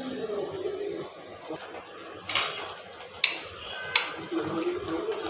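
Steel ladle knocking against a steel cooking pot of curry: three metallic clanks in the second half, each with a short ring.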